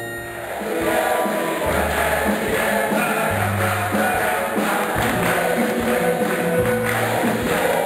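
Gospel praise-and-worship music: a choir singing with tambourine and a bass line that moves note by note. It starts about half a second in.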